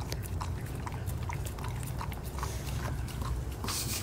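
A Siberian husky eating raw meat from a metal bowl: wet chewing and smacking, with a quick run of short clicks and licks, several a second.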